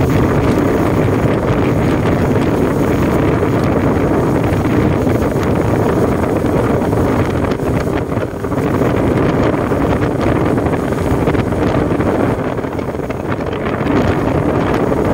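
Wind buffeting the microphone on a speedboat under way at sea, over the steady run of its motor and the rush of water along the hull. The noise eases briefly about eight seconds in and again near the end.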